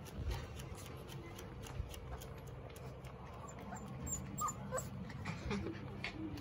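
Young puppies giving a few short, squeaky whimpers, some sliding down in pitch, bunched around the middle, over soft rustling and scuffling on a fleece mat.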